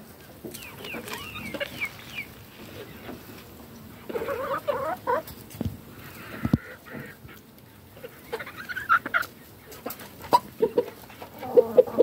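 Domestic chickens clucking in bursts of several short calls as they feed, some of the calls higher and thinner, with quieter stretches in between.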